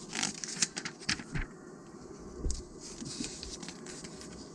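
Glossy magazine pages being handled and turned: sharp paper crackles and rustling, with a thump about two and a half seconds in as a page is laid over.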